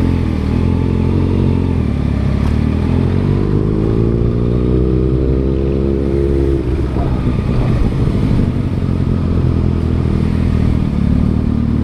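Motorcycle engine running under way: its pitch climbs steadily for a few seconds, drops sharply about seven seconds in, then holds steady.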